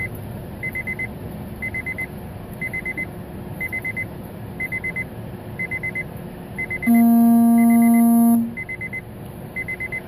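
A construction-machine warning alarm beeps in quick groups of high pips about once a second over the low rumble of a diesel engine. About seven seconds in, a vehicle horn sounds one loud blast of about a second and a half.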